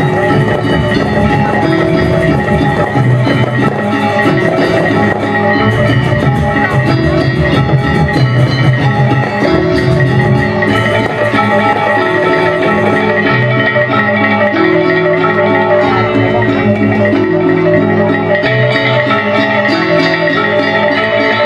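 Balinese gamelan gong kebyar ensemble playing, its bronze metallophones ringing in a continuous run of bright pitched notes.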